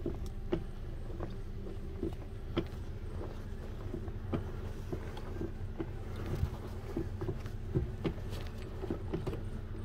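Irregular clicks and knocks from a BMW E46's clutch pedal, pressed and released by foot over and over after the clutch hydraulics were freshly bled, over a steady low hum.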